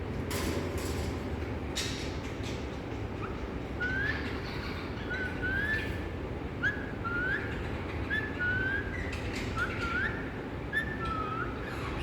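A bird whistling a run of about a dozen short, rising notes, one or two a second, beginning about three seconds in, over a steady low rumble. A few sharp clicks come in the first two seconds.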